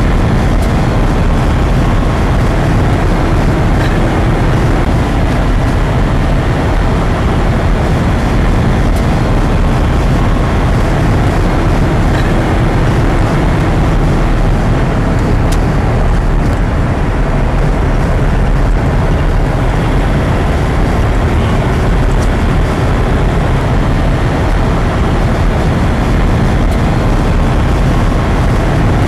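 Steady low rumble of a car being driven on a highway, heard from inside the cabin: engine, tyre and wind noise with no marked changes.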